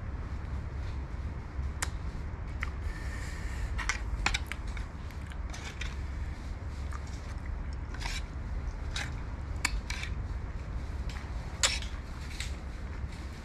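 Metal spoon scraping and clinking against a ceramic bowl as it stirs and scoops fruit in a chili dip. The clicks come at irregular moments, with the loudest clink near the end, over a steady low hum.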